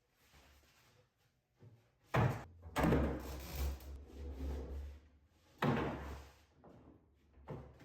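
Three heavy thumps, the first two close together about two seconds in and a third near the middle, each dying away with a low rumble.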